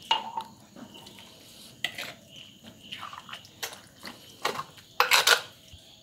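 A steel spoon stirring a wet beef curry mixture in an earthenware pot, with scattered clinks and scrapes against the clay. A louder run of scraping comes about five seconds in.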